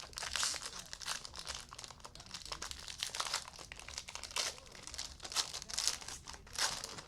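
Trading card pack wrappers crinkling and tearing as packs are opened, in irregular bursts.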